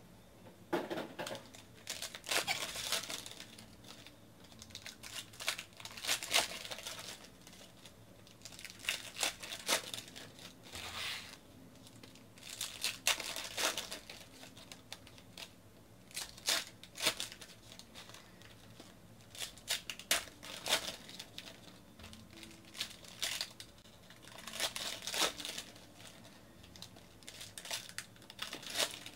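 Foil wrappers of Panini Contenders basketball card packs crinkling and tearing as they are ripped open by hand, in repeated bursts every second or two.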